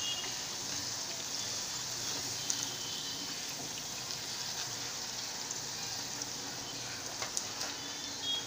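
Hot oil sizzling steadily in a kadhai as chickpea-batter raw banana fritters deep-fry on a high flame, with a few light clicks of a wire skimmer against the pan.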